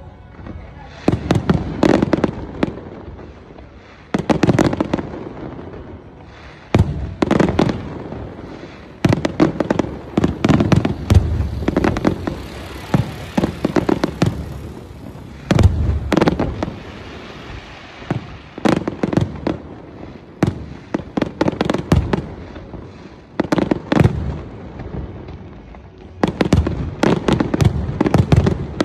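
Fireworks display: volleys of aerial shells bursting with sharp bangs and crackling, coming in clusters a few seconds long with short lulls between.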